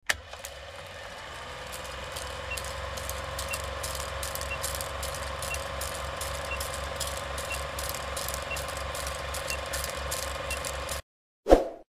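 Film projector running with a steady mechanical clatter, a faint short beep about once a second marking the countdown. It cuts off about eleven seconds in and is followed by one short loud hit, the loudest sound here.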